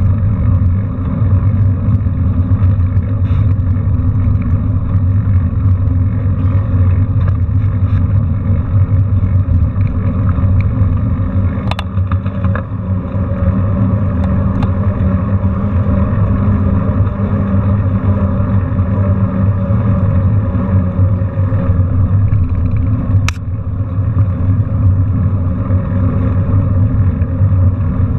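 Steady low rumble of wind buffeting a handlebar-mounted camera and bicycle tyres rolling on asphalt, with two sharp clicks, one near the middle and one later on.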